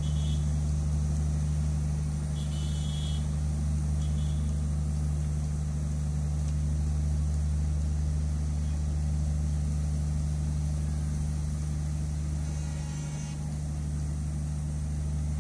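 Diesel locomotive engine running steadily, a constant low hum with no change in pitch or level.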